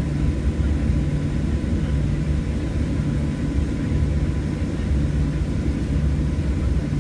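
Cabin noise inside a Boeing 737 taxiing: a steady low rumble of the jet engines at low power, with a faint steady hum above it.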